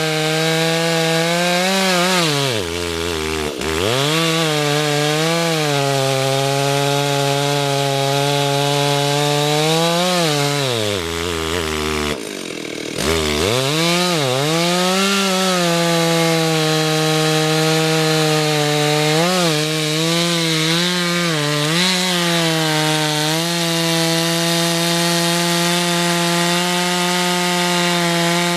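Stihl two-stroke chainsaw cutting into a poplar trunk at high revs. The engine pitch drops sharply and recovers about three seconds in, and again near the middle, where it falls low for a moment. Smaller dips follow in the later part as the chain works through the wood.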